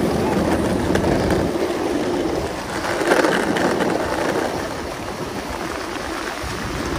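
Longboard wheels rolling over city pavement: a steady, noisy rumble that swells briefly about three seconds in.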